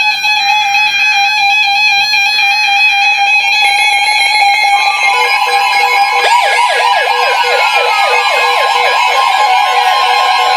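Weather radio alarms sounding together. A warbling electronic alert tone plays from the start, the broadcast's steady 1050 Hz weather radio alert tone joins about five seconds in, and a fast, wailing siren-like alarm from another receiver starts about a second later.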